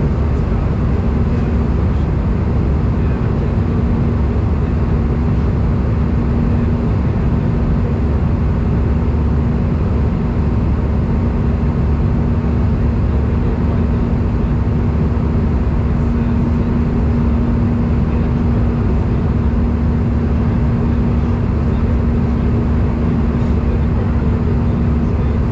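Steady cabin noise of an Airbus A319 in the climb, heard from a window seat over the wing: a deep rumble of jet engines and airflow with a constant low hum running through it.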